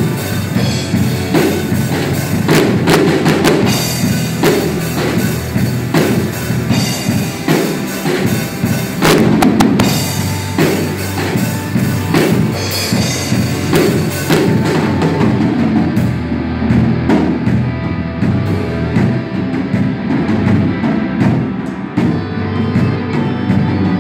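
Live rock band playing an instrumental passage: a drum kit with bass drum, snare and frequent cymbal crashes over electric guitars. About fifteen seconds in the cymbal crashes stop and the drums and guitars carry on.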